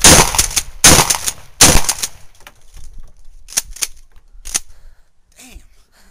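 Mossberg Model 88 12-gauge pump-action shotgun fired three times in rapid succession with 3-inch turkey loads, the loud blasts under a second apart, each with a ringing tail; a few lighter clacks follow.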